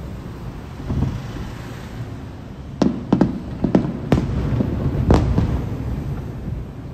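Aerial firework shells bursting: a cluster of about five sharp bangs between roughly three and five seconds in, over a continuous low rumble from the display.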